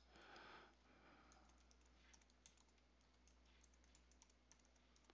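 Faint typing on a computer keyboard: a quick run of light key clicks as a word is typed in.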